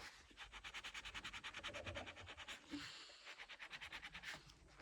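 A rubber eraser rubbed quickly back and forth on paper, an even run of short scratchy strokes at about ten a second that eases off near the end.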